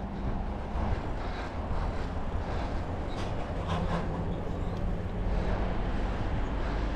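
Wind and tyre noise from a bicycle rolling along the road, picked up by a handlebar-mounted action camera, over a steady low hum, with a few faint clicks.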